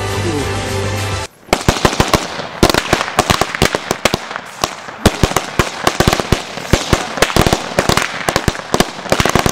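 Background music that cuts off just over a second in, then a homemade string of about 10,000 firecrackers going off in rapid, irregular bangs, many a second.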